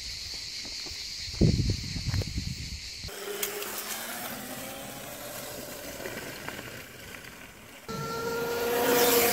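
Steady hiss with a few knocks, then a homemade electric kart driving. Its 1000 W 48 V brushed DC motor and chain drive whine as it approaches, the whine rising slightly in pitch and growing louder near the end.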